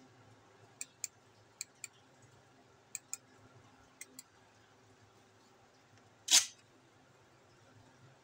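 Plastic switch clicks from a handheld stun-gun flashlight: four quick click-click pairs about a second apart. About six seconds in comes one much louder, sharp clack.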